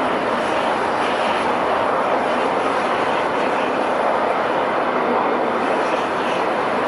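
Jet airliner engine noise: a steady, even rushing sound that holds at one level.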